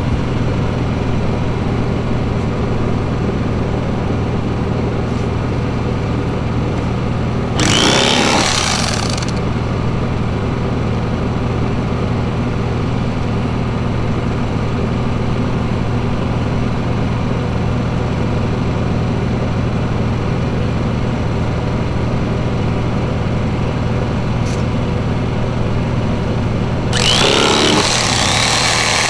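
A small engine running at a steady drone, with two short louder rushes of noise, one about eight seconds in and one near the end.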